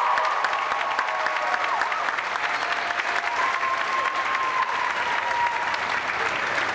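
A large audience applauding steadily, a dense patter of clapping.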